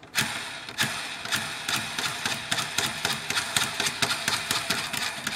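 Small gear train of a vintage ADF receiver's tuning mechanism being turned by hand: rapid, uneven clicking and ticking of the gears. The gears drive the mechanism that moves the ferrite slugs in the tuned coils to change the tuning.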